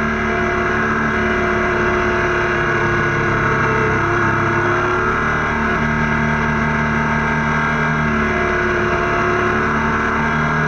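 Motorcycle engine running at a steady cruise, mixed with wind and road noise, its pitch shifting a little about midway.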